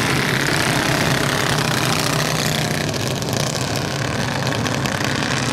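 Several racing go-kart engines running together in a steady, loud drone as the pack laps the dirt track. The pitch of the nearest engine falls over the first few seconds.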